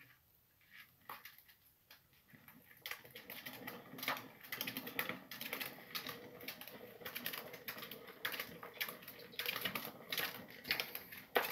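Sugar glider running in an enclosed plastic exercise wheel. From about three seconds in, the spinning wheel rattles and clicks rapidly under a faint steady hum.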